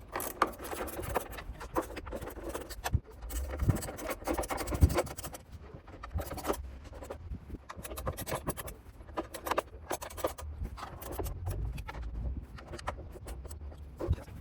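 Screws being driven into a washing machine's plastic outer tub with a hand tool, with irregular clicks, scratches and scrapes from the tool and the tub halves.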